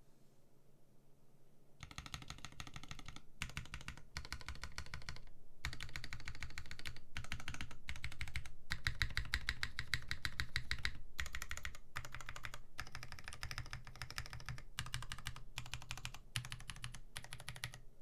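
Equalz Zer0.9 mechanical keyboard with a polycarbonate plate, Milk Gateron switch housings with Kailh Black stems, ePBT keycaps and no dampening, its keys pressed in quick bursts of clacking keystrokes with short pauses between. The clacking starts about two seconds in and stops just before the end.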